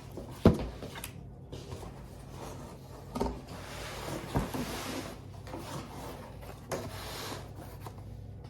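A cardboard box and its packaging being opened and handled: a sharp knock about half a second in, a few lighter knocks, and stretches of cardboard and paper rustling and scraping.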